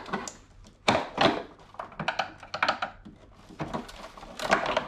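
Screwdriver levering at the plastic top lid of a Maytronics robotic pool cleaner: irregular plastic clicks and knocks as the lid is prised loose, the loudest about a second in and again near the end.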